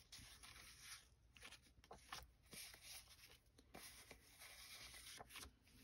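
Faint rustling and handling of thin paper sheets and cards, with a few soft clicks and taps scattered through.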